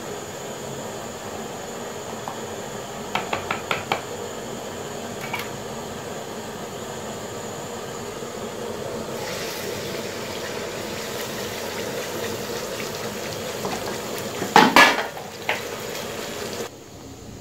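Metal cookware handled over a stove: a quick run of light metal clicks about three seconds in, and a louder clatter of pan and utensils near the end, over a steady low hiss.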